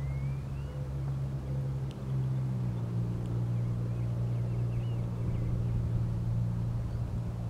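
A motor running steadily with a low hum, its pitch stepping up slightly about two and a half seconds in; faint bird chirps over it.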